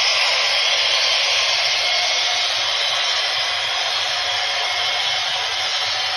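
Model electric freight train running past on its track: a steady whirring rush of wheels and motor.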